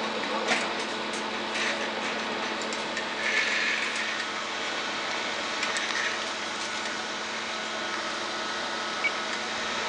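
Steady hum of running bench test equipment, with a few light clicks and a short rustle of handling a little after three seconds in.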